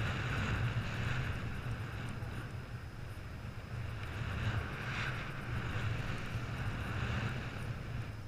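Wind rushing over a GoPro's microphone during a paraglider flight: a steady roar of airflow that swells and eases a little.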